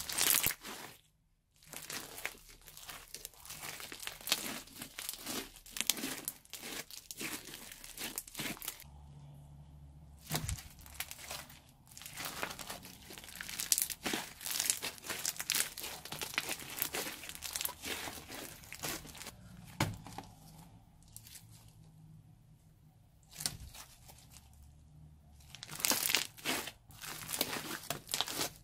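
Thick slime with small colourful bits being kneaded, squeezed and stretched by hand, making dense crackling and popping, with two short quieter pauses.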